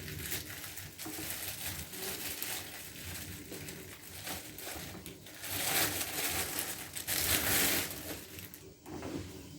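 Crunching and crinkling as a loaf of black bread is handled and cut with a knife, loudest for a couple of seconds past the middle.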